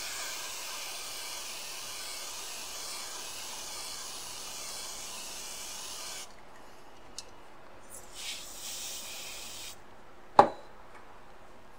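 Can of freeze spray hissing over an iPhone logic board, one long burst of about six seconds that cuts off, then a shorter burst a couple of seconds later, followed by a single sharp click near the end. The spray frosts the board so that the shorted capacitor on the powered VDD boost line shows itself by thawing first.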